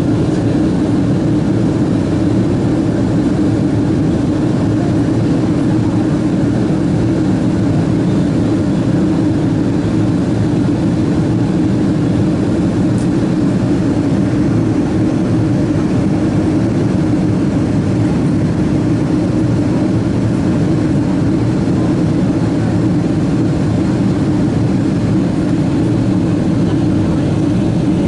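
Steady cabin drone of a Boeing 777-200 airliner in flight, heard from inside the cabin: engine and airflow noise, deep and even, with no changes.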